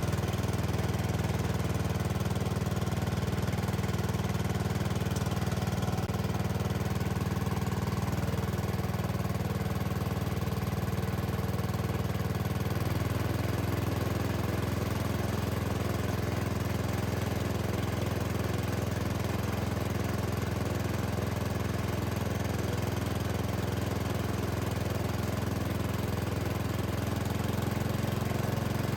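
Sears garden tractor engine running steadily while turning a belt-driven Sears 4000-watt generator attachment. The engine note changes about halfway through and then holds steady.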